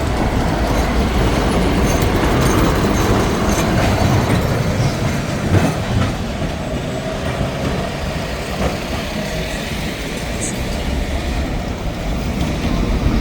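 Tram running along street rails, a steady noise with a few sharp knocks from the wheels, the loudest about halfway through.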